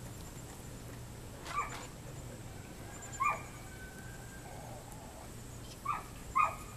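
Standard poodle puppies yipping as they play: four short, high yips, the last two close together near the end.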